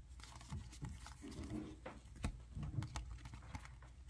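Baseball trading cards being handled and dealt onto piles by hand: soft, irregular taps and rustles of card stock, with a few sharper ticks.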